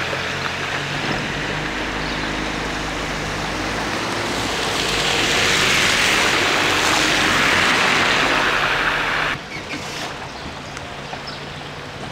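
Car tyres hissing through water on a flooded, rain-soaked road, with a low engine hum under it. The hiss swells about halfway through as an oncoming car passes close by, then drops suddenly about nine seconds in to a quieter wet-road hiss.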